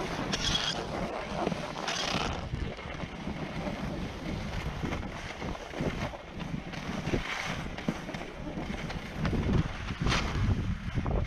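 Skis sliding and scraping over groomed snow, with wind rushing on the microphone; several louder swishes stand out, the loudest about ten seconds in.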